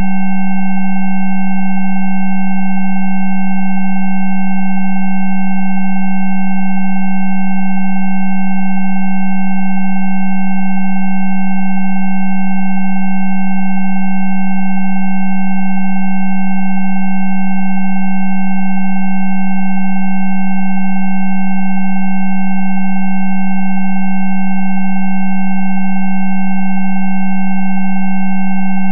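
Synthesised sine tones of a Rife frequency track, held perfectly steady and unchanging: a loud low tone with several fainter, higher tones sounding together above it.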